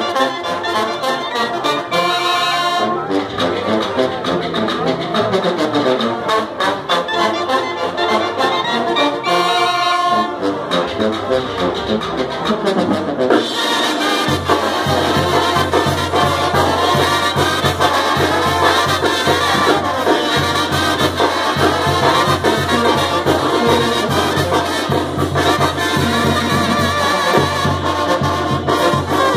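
Sinaloan brass band playing live: trumpets, trombones and clarinets carry the melody, and about halfway through a low bass line and steady beat come in under them.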